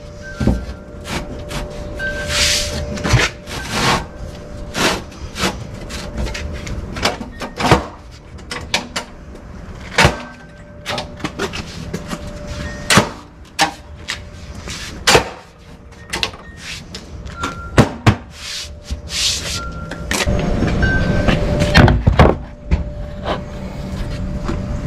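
Irregular knocks and clatter of a plywood panel being shifted and pressed down on a sawhorse, with a steadier noise in the last few seconds.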